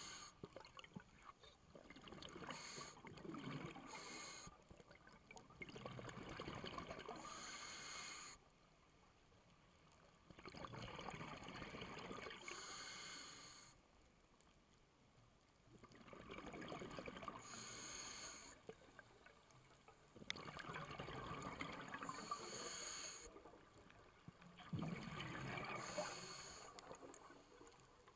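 Scuba diver breathing through a regulator underwater: a hissing inhale followed by a bubbling exhale, repeating about every five seconds, six breaths or so.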